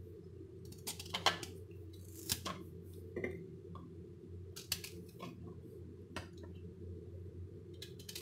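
Peeled raw green mango being cut into small pieces in the hand: about a dozen short, irregular crisp cutting snicks, over a steady low hum.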